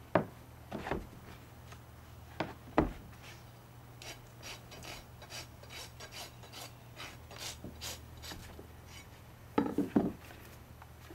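Hoof rasp filing a Fjord horse's hoof during a trim, in a run of quick strokes at about three a second from about four seconds in. A few sharp knocks come before it, and a louder clatter of knocks comes near the end.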